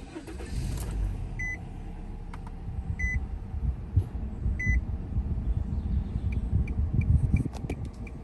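Car engine running with a steady low rumble inside the cabin, while a dashboard warning chime beeps three times about a second and a half apart. Near the end come light, quick ticks, about three a second.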